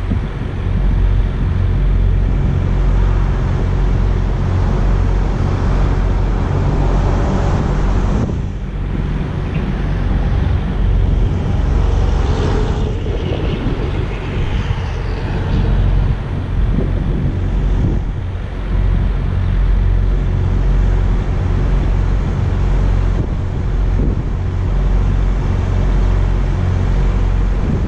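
Wind buffeting the microphone over a steady rumble of road traffic and truck engines, with the level surging and dipping every few seconds.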